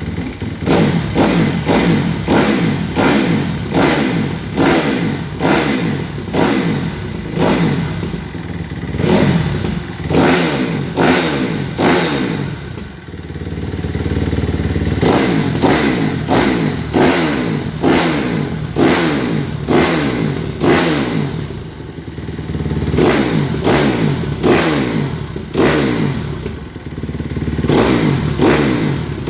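Kawasaki KX 250 motocross engine, just rebuilt with its valves freshly lapped, being warmed up with short gentle throttle blips, roughly one a second, each rising and dropping back. It settles into a steady idle for a couple of seconds around the middle, then the blips resume.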